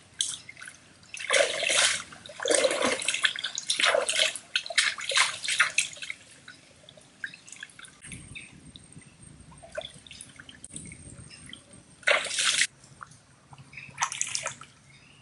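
Stream water splashing as a banded snake is grabbed and handled by hand in the water: a run of loud splashes over the first six seconds, quieter water sounds after, then two short splashes near the end.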